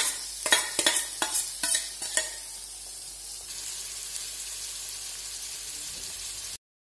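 Chopped tomatoes tipped into a hot kadai of onions and paneer frying in oil, with a few sharp metal clinks and scrapes over the first two seconds, then a steady oil sizzle. The sound cuts off suddenly shortly before the end.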